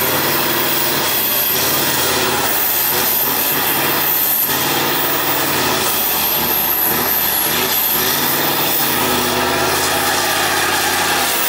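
Tatra 815 6x6 trial truck's engine running hard under load as the truck crawls through deep mud, with an uneven, wavering pitch over a constant noisy haze.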